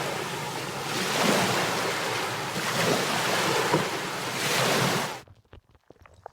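Ocean surf: waves washing in one after another, the rushing noise swelling and easing every second or two, until it cuts off suddenly about five seconds in.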